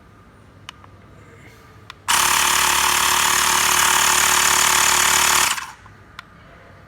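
Xiaomi Mi portable electric air compressor inflating a car tyre. It starts abruptly about two seconds in, runs loudly and steadily for about three and a half seconds, then stops. A few light clicks come before it.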